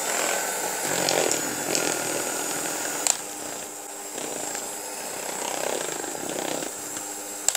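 Siemens electric hand mixer running steadily, its beaters whisking thick cake batter of egg, sugar, oil and flour in a plastic bowl. A brief knock about three seconds in.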